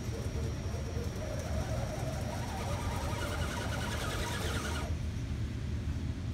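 Electric motor and gears of an RC rock crawler whining under throttle as it climbs over rocks. The whine rises in pitch and cuts off suddenly about five seconds in, over a steady low rumble.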